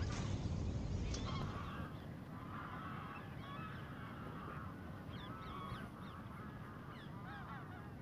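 A flock of geese honking, with many short calls overlapping one another.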